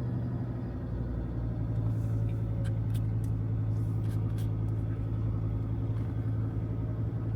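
A steady low engine hum with evenly spaced overtones that holds level throughout, with a few faint clicks.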